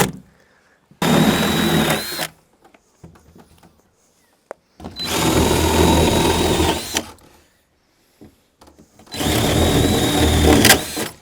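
Power drill boring holes through a timber bed base in three runs of about one to two seconds each. The motor whine spins up and winds down at each start and stop.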